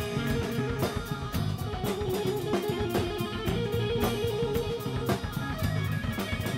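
Background music: guitar over a drum kit with a steady beat.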